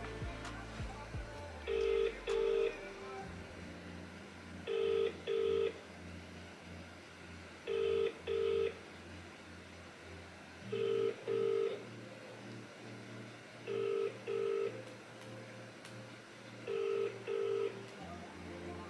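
British telephone ringback tone of an outgoing call, heard over a phone's loudspeaker: the double ring repeats about every three seconds, six times, while the call waits to be answered.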